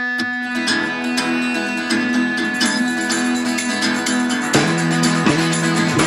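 Background music led by plucked guitar, with a steady rhythmic pulse; a lower bass part comes in about four and a half seconds in.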